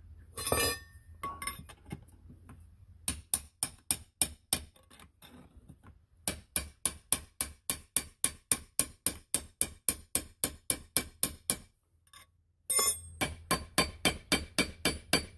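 Claw hammer striking the end of a long flathead screwdriver in runs of quick, even, sharp taps, about four a second, driving its tip against the edge of the old wear ring to knock it loose from a Sea-Doo jet pump housing.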